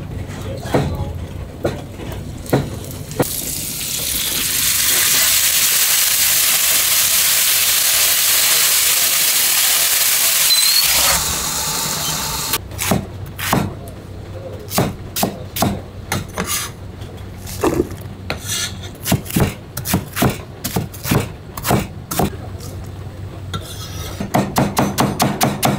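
A large gyoza griddle sizzling loudly for about eight seconds, then stopping. A cleaver then chops cabbage on a plastic cutting board, first in irregular knocks and near the end in a fast, even run of about seven strokes a second.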